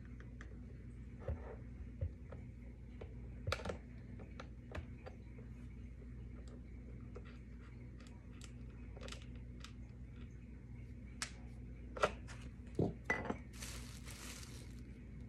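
Scattered small clicks and taps of a hand tool and metal parts while a roller skate wheel is unscrewed and swapped, the sharpest clicks a little after the middle. Near the end a rustle of bubble wrap as new wheels are handled.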